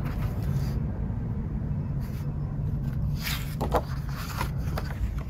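Paper rustling as the glossy pages of a concert program are handled, a few brief crackles about three seconds in, over a steady low rumble.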